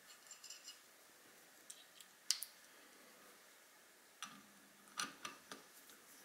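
Light, scattered clicks and taps of a screwdriver and small metal scope-ring screws being handled. The sharpest click comes a little over two seconds in, and a few quicker ones come near the end.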